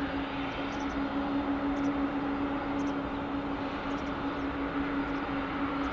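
KLM Boeing 747-400 on final approach with its gear down, its four CF6-80C2 turbofans at approach power: a steady jet rush with a constant low drone running through it.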